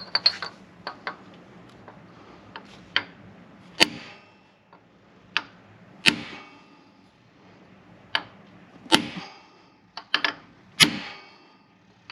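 Sharp metal-on-metal strikes, as of a hammer driving a chisel or punch against a steel sleeve to work it loose on its shaft. The strikes are irregular, about a second apart, sometimes two close together, each ringing briefly.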